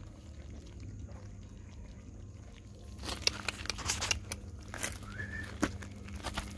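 Crackling and scuffing from about three seconds in as a puppy moves over gritty ground, with one short, high puppy whimper near the end. A low steady hum sits under the first few seconds.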